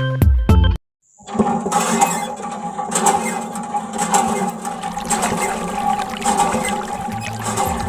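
Water gushing and splashing from a miniature diorama water pump, with a steady hum under it, starting after a short burst of background music that cuts off.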